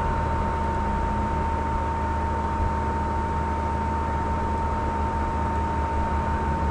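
Steady hiss with a constant high whine and a low hum underneath, unchanging throughout: background electrical or recording noise.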